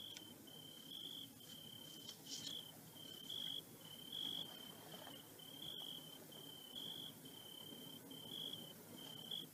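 A cricket chirping: short trills of one even pitch, repeating steadily about once a second, faint.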